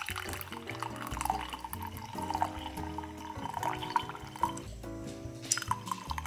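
Tea pouring from a ceramic teapot through a metal mesh tea strainer into a cup, with background music playing.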